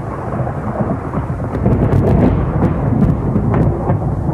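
Thunderstorm sound: a long rumble of thunder over steady rain, swelling about halfway through, with a few sharp crackles.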